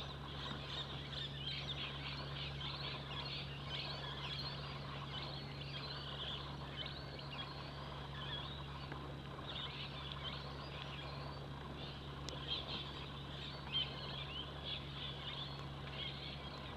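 Many birds chirping and calling continuously over a steady low hum, with a few brief sharp clicks now and then.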